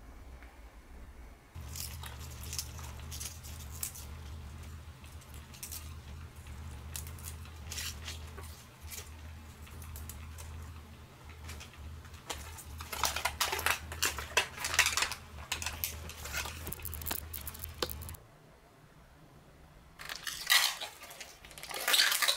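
Fresh bok choy being pulled apart by hand: irregular crisp snaps, crackles and rustles over a steady low hum. Near the end, plastic film is peeled off a tray of sliced beef with loud crinkling.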